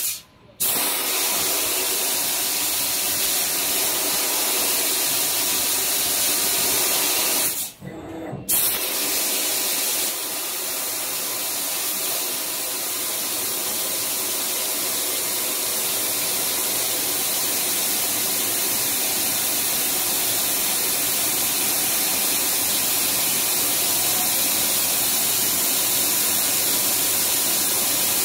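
Fiber laser tube-cutting machine cutting 10 mm stainless steel tube: a loud, steady hiss from the assist-gas jet at the cutting head. The hiss cuts out briefly twice, just after the start and about eight seconds in.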